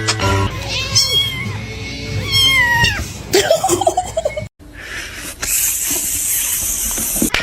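A cat meowing several times, in long calls that rise and fall in pitch. After a short break, a steady hissing noise.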